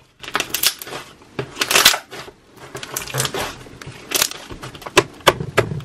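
Purple borax slime being squeezed and kneaded by hand, giving irregular squishing sounds and sharp clicking pops.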